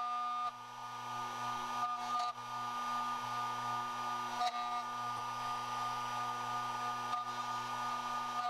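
HPC Scotsman tubular key duplicator's cutter motor running with a steady whine and hum, with a few faint clicks as the key is worked from cut to cut.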